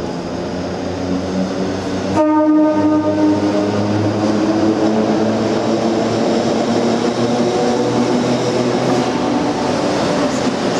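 Heritage Red Set F1 electric train running into an underground station, its motors and wheels rumbling and growing louder as it nears. About two seconds in, it sounds its horn, a single pitched blast of about a second.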